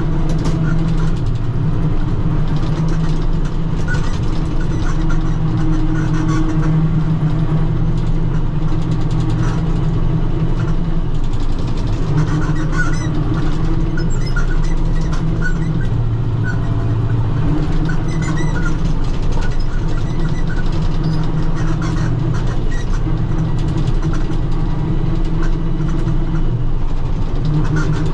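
Diesel tractor engine running steadily while driving a rotary cutter (bush hog) through the grass, its note shifting a little now and then.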